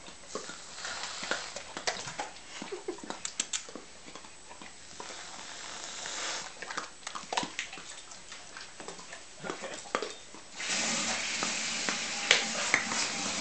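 Weimaraners licking and smacking at whipped cream, a run of quick wet clicks and lip smacks. Near the end an aerosol whipped-cream can sprays with a steady hiss for about three seconds.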